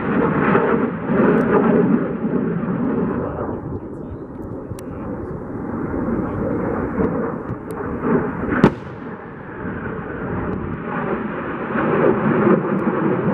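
F-16 Fighting Falcon jet passing overhead, its engine a loud, rough rush of noise that eases in the middle and swells again near the end. A single sharp crack stands out about two-thirds of the way through.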